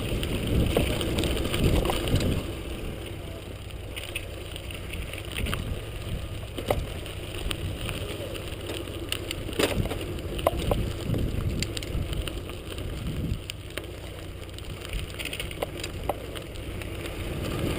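Wind buffeting the microphone of a camera riding along on a bicycle, a low rumble that swells and fades, with scattered small clicks and rattles.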